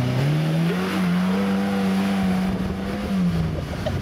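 Small off-road 4x4's engine revving up hard as it climbs a steep, sandy hill, held at high revs for a couple of seconds, then the revs drop just after three seconds in.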